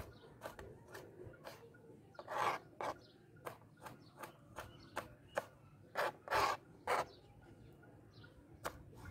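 Kitchen knife slicing a tomato on a plastic cutting board: irregular sharp taps of the blade meeting the board, with a few longer scraping sounds, the loudest about two and a half seconds in and around six to seven seconds in.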